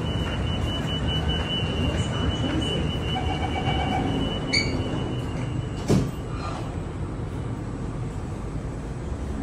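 Singapore MRT train standing at an underground platform, with a low steady hum throughout. A thin, steady high tone runs for about the first six seconds, with a short chime near the middle. It ends when the doors shut with a single sharp thud.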